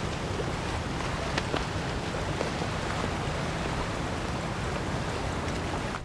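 Steady rushing ambience of a ship's deck at sea: water wash and wind, with a low rumble underneath.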